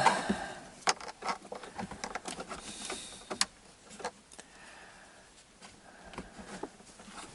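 Scattered light clicks and knocks with faint rustling, as a GAZelle heater fan motor is handled and fitted back into its place; the motor is not running.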